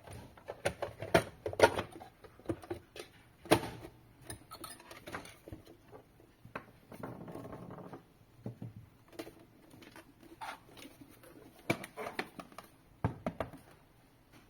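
Scattered light clicks and taps of wires and plastic parts being handled as cables are tucked into place inside the machine's housing, with a short rustling scrape about seven seconds in.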